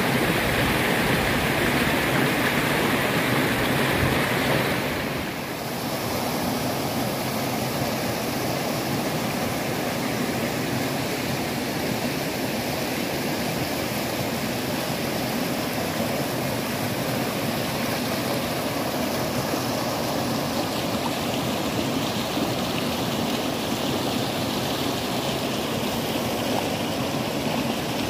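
Shallow rocky river rushing and splashing over boulders in small rapids, a steady roar of water. About five seconds in it dips briefly, then carries on a little softer.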